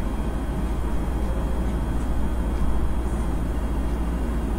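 A steady low background hum and rumble, like an air conditioner or fan running, unchanging throughout.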